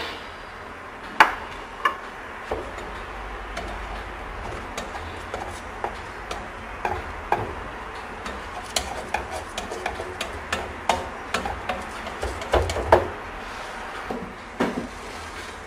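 Irregular light taps and clicks with a few louder knocks: a ball of semolina dough being dabbed again and again onto a hot nonstick pan to lay down a thin malsouka (brick) pastry sheet.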